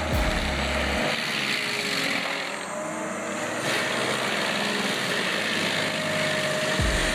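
Heavy forestry machinery running: a steady engine and hydraulic din with a faint constant whine, and a few deep low thumps near the start and near the end.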